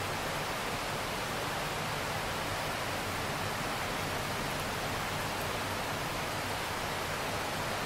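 Steady rain falling on open water: an even, unbroken hiss with no single drops standing out.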